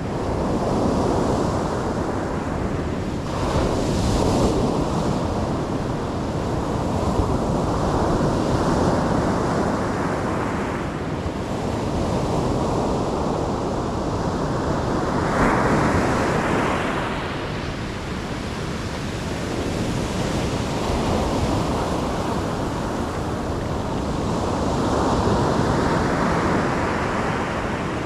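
Ocean surf: waves breaking and washing up the shore in a continuous rush that swells and ebbs, with a stronger surge every few seconds.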